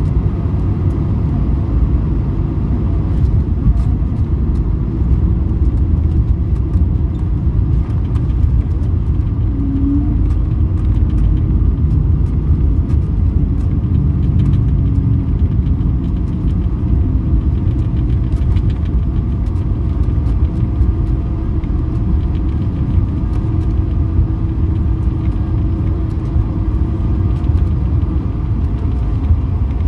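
Loud, steady rumble inside the cabin of an Airbus A220 rolling down the runway after landing with its ground spoilers raised. The sound is wheel, airflow and engine noise blended together.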